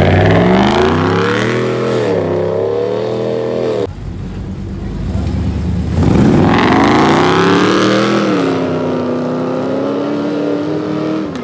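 Pickup truck engines accelerating hard off the line in dirt drag runs: the revs climb steeply, dip briefly at a gear shift, then climb again. There are two launches, one right at the start and a second about six seconds in.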